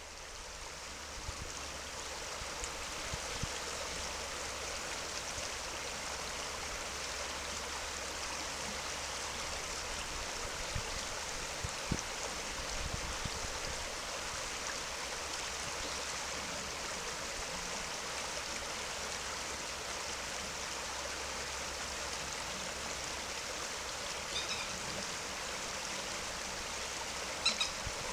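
River water rushing steadily past and between stepping stones, a constant hiss of flowing water that fades in over the first couple of seconds.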